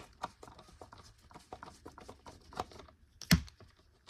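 A screwdriver working on a plastic vacuum cleaner housing: scattered light clicks and taps, with one louder knock a little over three seconds in.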